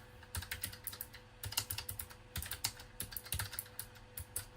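Keystrokes on a Keychron K1 low-profile mechanical keyboard, typed in quick irregular runs of sharp clicks. The switches are tactile and clicky, though lighter than full Cherry MX Blues.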